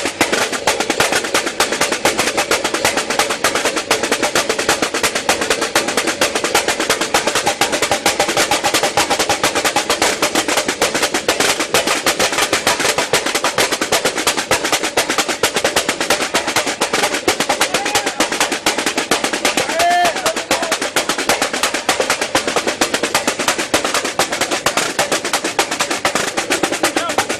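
Samba percussion ensemble (bateria) playing a fast, dense batucada rhythm on snare and other drums, heard through the sound truck's PA during a soundcheck.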